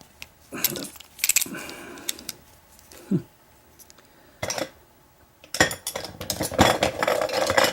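Small metal padlock parts clicking and clinking as an American 1100 padlock is taken apart by hand, with a few separate clicks and then a busier stretch of rattling metal clatter near the end.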